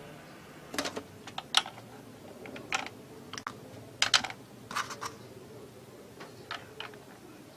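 Irregular light clicks and taps of small plastic toy pieces being handled, about a dozen in all.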